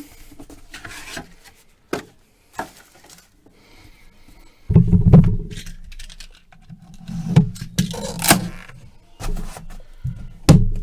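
Hands opening and handling a box of trading cards: scrapes, rubs and sharp clicks of cardboard and packaging, with louder handling thumps close to the microphone from about five seconds in.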